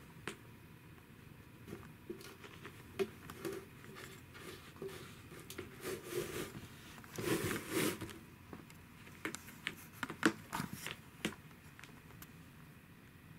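Scattered light taps, scratches and scuffs of a cat nosing and pawing against a clear plastic insect case, with a longer scratchy rustle about seven to eight seconds in.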